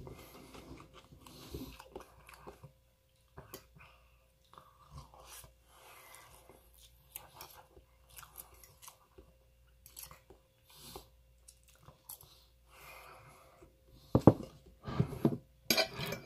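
Close-up chewing and biting of tofu stuffed with shrimp and rice, soft wet mouth noises coming in short irregular bursts. Near the end come a few much louder knocks, as the plate and fork clatter close to the microphone.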